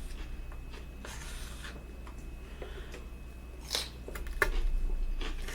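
A person chewing food close to the microphone: crackly, crunchy bites and short wet mouth clicks, coming in irregular bursts and busiest near the end.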